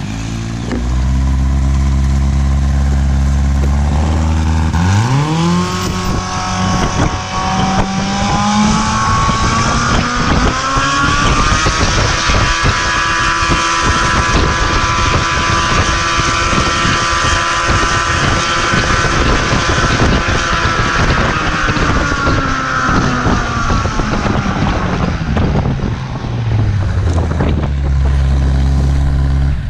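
2008 Yamaha Apex 150 hp four-cylinder four-stroke engine driving a four-blade 70-inch propeller through a Skytrax gearbox, run up from idle to full throttle on a static thrust test. About five seconds in the pitch climbs quickly, rises further to a steady full-power note of about 10,000 rpm with loud propeller wash, held for about ten seconds while pulling around 600 lb of thrust, then falls back to idle near the end.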